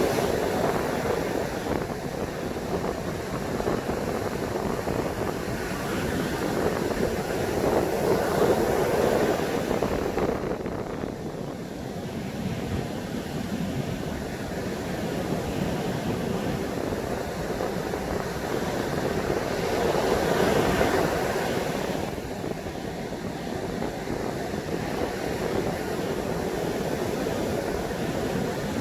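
High surf breaking and washing up a beach, swelling louder about every ten seconds as big waves come in, with strong wind rumbling on the microphone.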